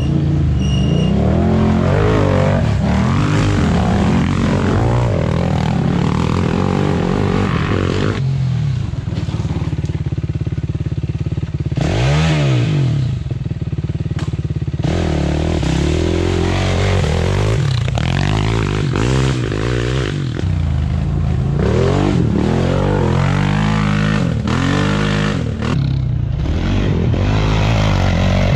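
Quad ATV engines revving hard under load, pitch rising and falling again and again as the throttle is worked.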